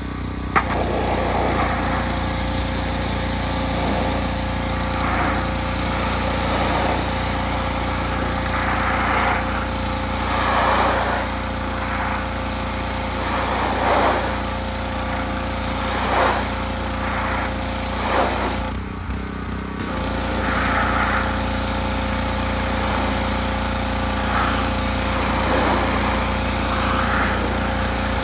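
Pressure washer running steadily, its jet hissing against a diesel particulate filter and swelling and fading as the wand sweeps across it. About 19 seconds in the spray stops for about a second, then starts again.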